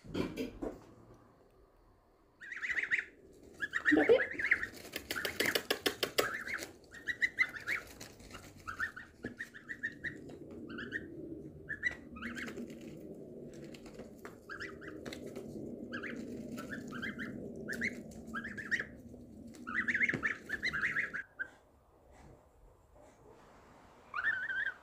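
Goslings peeping in many short, repeated high calls, some sliding upward, which fall quiet near the end.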